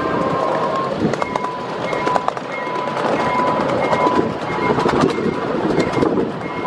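Miniature ride-on passenger train running along its small-gauge track: a steady rumble with many short clicks from the wheels, and a high steady tone that comes and goes.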